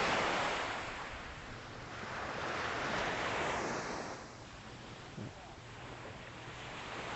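Small ocean waves breaking and washing up the beach, the surf swelling and fading twice in calm seas.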